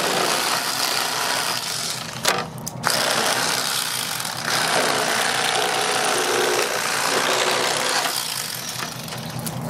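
Electric fillet knife buzzing as its blades cut through crappie fillets. It stops briefly about two seconds in, then runs again.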